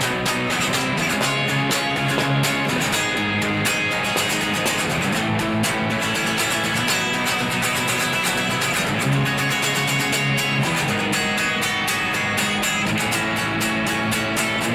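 Electric guitar strumming chords in an instrumental passage of a rock song, changing chord every couple of seconds over a steady beat.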